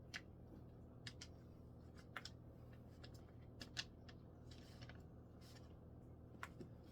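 Faint, scattered clicks and taps as the plastic parts of a cordless string trimmer are handled and fitted during assembly, over a low steady room hum.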